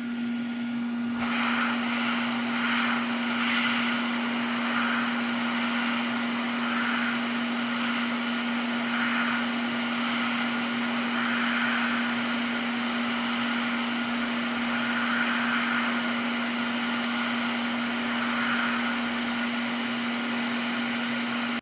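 Hot-air rework station blowing steadily with a constant motor hum, used to solder a new HDMI port onto a PS5 motherboard. It cuts off suddenly near the end.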